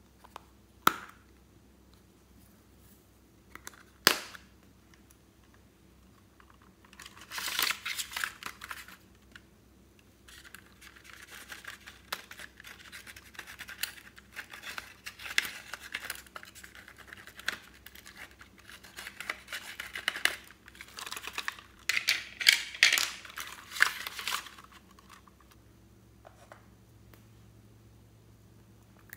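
Two sharp clicks of a plastic makeup compact, then a tool scraping and scratching pressed eyeshadow powder out of a plastic palette in long stretches. The scraping is loudest near the end.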